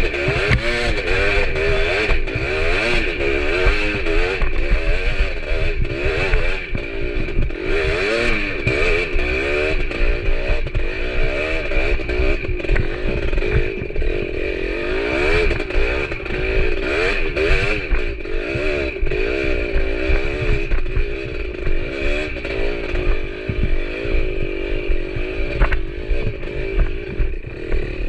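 Motorcycle engine under way, its pitch rising and falling over and over as the throttle is opened and closed, with rattling clatter throughout.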